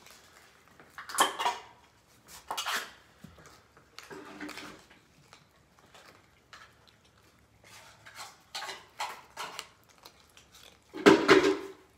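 Spoon and dishes clinking and clattering as cat food is dished out into bowls: a run of separate clatters, the loudest about eleven seconds in.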